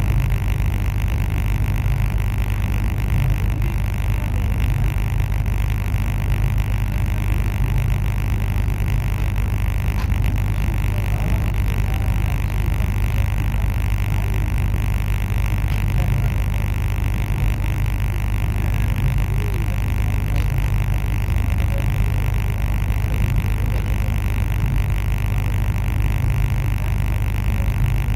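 Regional passenger train running, heard from on board: a steady, unbroken deep rumble with a hiss above it.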